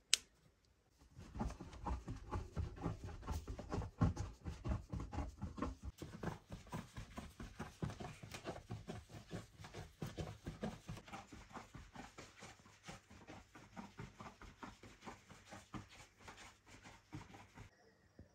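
Bread dough being kneaded by hand in a wooden trough: fists pressing and punching into the soft, floured dough with rapid, muffled thuds, several a second, gradually fading.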